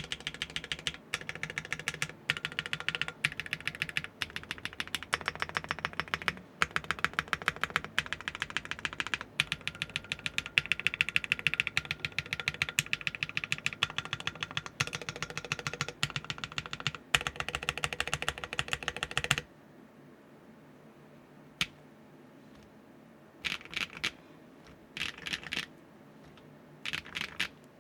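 Mechanical keyboard with Keygeek Pomkin linear switches being typed on fast, a dense stream of keystrokes with a deep, thocky sound. About two-thirds of the way through the typing stops, and only a few short bursts of keypresses follow.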